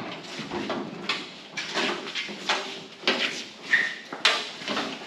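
Irregular knocks, scrapes and clatter of metal truck parts being handled and moved, about one or two sharp sounds a second.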